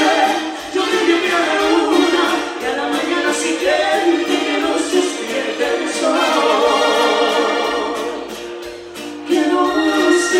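Live dance orchestra (orquesta) playing a song, with singers' voices in harmony over the band and a steady beat.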